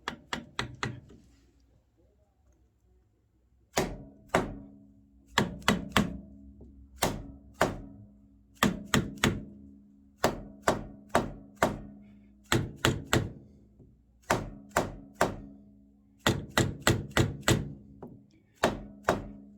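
A hammer tapping a steel bar-stock workpiece down onto a parallel bar in a milling vise to seat it. There are a few taps at the start, then after a short pause repeated groups of two to four quick taps, each leaving a short metallic ring.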